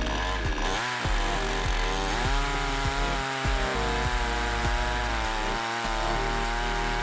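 HAIGE HG-F5200 52cc two-stroke chainsaw running at full throttle while ripping lengthwise through a partly rotten pine log in a chainsaw mill. The engine pitch wavers during the first couple of seconds as the chain takes the load, then holds fairly steady.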